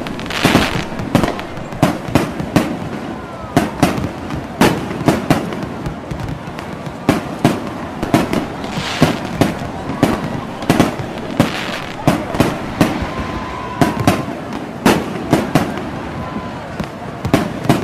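Fireworks display: an irregular run of sharp bangs from bursting shells, often several a second, with a few short crackling, hissing swells among them.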